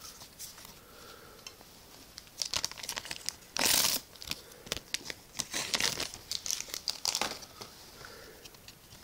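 Trading card booster pack wrapper being torn open and crinkled by hand: after a couple of quiet seconds, a run of crackling rustles and sharp crinkles, with one louder rip about three and a half seconds in.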